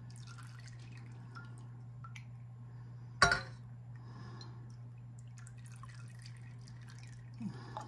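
Olive oil trickling and dripping into a small glass bottle as it is filled, with a sharp clink about three seconds in. A steady low hum runs underneath.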